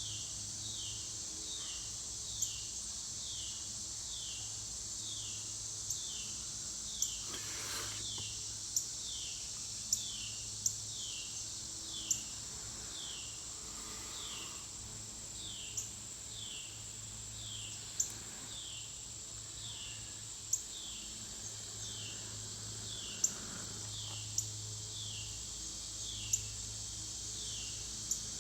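Outdoor insect chorus: a steady high buzz, with a short falling chirp repeated evenly about every two-thirds of a second and sharp clicks every second or two.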